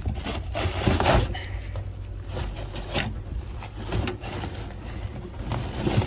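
Interior trim panels and wiring being pulled and handled: a string of short scrapes, rustles and knocks at uneven intervals.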